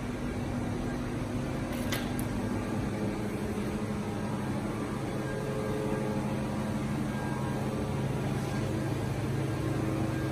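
Steady machine or ventilation hum with a few low tones, with a single faint click about two seconds in.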